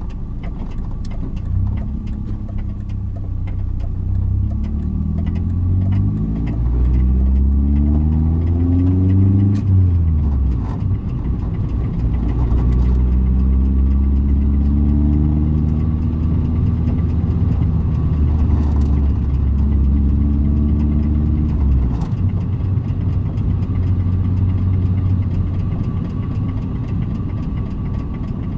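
BMW 318is (E36) four-cylinder engine running, revved and held up twice before settling back to idle about ten and twenty-two seconds in, with rapid clicking over the engine note. This is the abnormal 'pata-pata' flapping noise whose cause is still being investigated.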